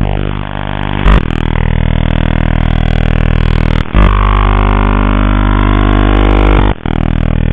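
Shortwave radio receiver giving a loud droning buzz of steady hum tones with slowly gliding whistles over it, broken by brief clicks three times.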